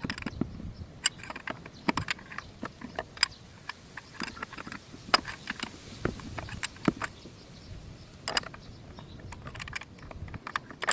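Irregular clicks, taps and knocks of hand tools and metal and plastic parts being handled while work goes on in a car's engine bay.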